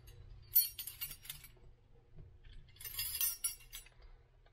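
Small container of black lure-making flakes being shaken, with clinking rattles in two short bouts, one about half a second in and one about three seconds in.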